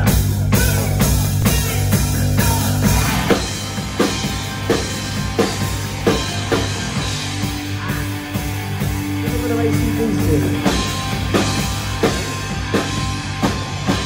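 Live rock band playing electric guitars and a drum kit: a big sustained chord rings for the first few seconds, then a steady drum beat comes in, with a long held note in the middle.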